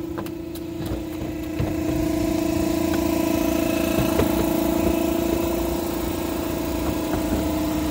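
A machine running steadily with a constant hum, a little louder from about two seconds in, with a few faint knocks.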